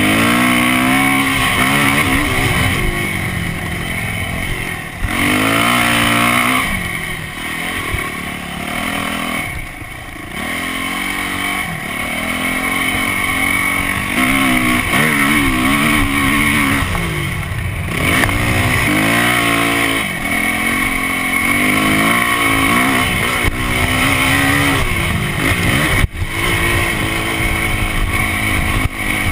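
Yamaha dirt bike engine being ridden over sand, its pitch rising and falling again and again as the throttle is opened and rolled off through the gears, with wind rushing over the microphone. About three-quarters of the way through the sound drops out for an instant.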